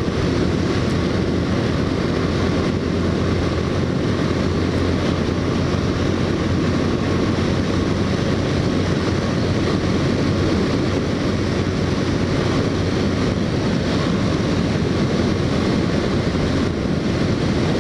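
Motorcycle cruising at a steady speed: the engine runs evenly under a constant rush of wind and road noise, with no change in pace.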